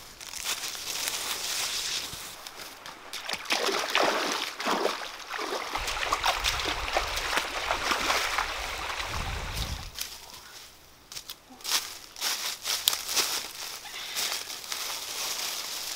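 Footsteps splashing and sloshing through a shallow stream, with the water trickling around them. From about 11 seconds in, short crackles and rustles of dry grass and leaves.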